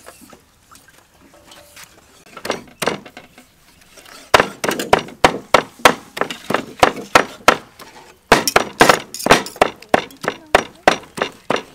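Cleavers chopping raw pork on round wooden chopping blocks: after a few quiet seconds, a run of sharp knocks starts about four seconds in, about three a second, with a short pause about eight seconds in.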